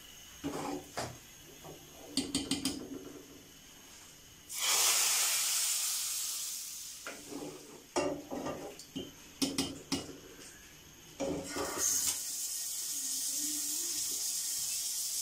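Hot ghee tempered with crushed cumin, red chilli flakes and chaat masala poured into cooked masoor lentils, setting off a sudden loud sizzle about four seconds in that fades over a few seconds. A spoon clinks against the metal pans, and a second steady sizzle starts near the end.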